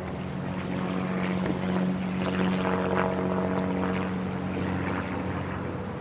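A motor's steady drone passing by, swelling to its loudest about halfway through and then fading away.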